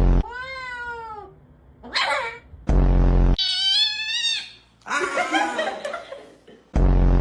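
Cat meowing: two long, drawn-out meows that bend in pitch, then rougher cries. Each is cut in on by a loud, flat buzz that starts and stops abruptly, three times.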